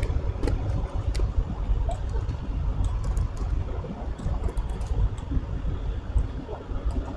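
Computer keyboard and mouse clicking: scattered short, sharp clicks over a steady low rumble of background noise.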